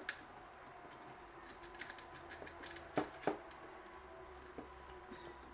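A few sharp clicks and light knocks of small hard parts being handled, the two loudest about three seconds in, over a faint steady hum.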